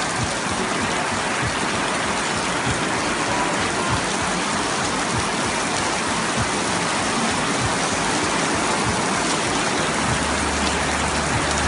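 Heavy rain pouring onto the surface of a swimming pool and the paving around it, making a dense, steady hiss. A low hum comes in near the end.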